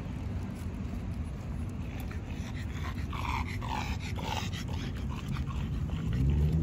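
A small dog whimpering in a quick run of short, high cries about halfway through, over a low steady rumble. Near the end a low motor hum starts and rises in pitch.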